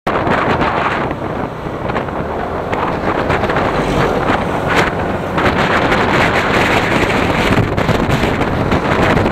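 Loud wind rush on the microphone of a motorcycle rider at speed, with the bike's engine running underneath.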